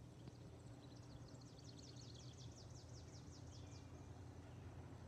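Faint songbird trill: a rapid run of high, downward-sweeping notes, about six a second, starting a little over a second in and lasting about two and a half seconds, over a faint, steady low drone.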